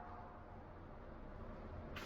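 The echo of a gunshot fading away, then a low steady background between shots, with one faint click near the end.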